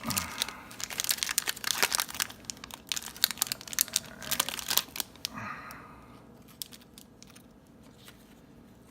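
Baseball card pack wrapper being torn open and crinkled: a dense run of crackling for about five seconds, then only a few faint clicks.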